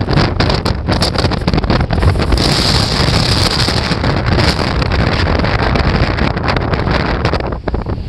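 Strong gusty wind buffeting the microphone, over the rush of heavy storm surf breaking, whipped up by a passing typhoon.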